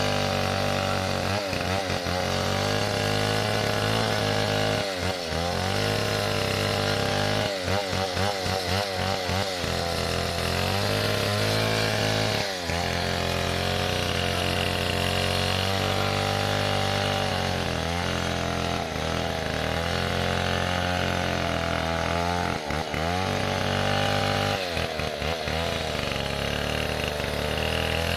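Stihl 070 two-stroke chainsaw running at high speed without pause, its pitch dipping briefly and recovering again and again.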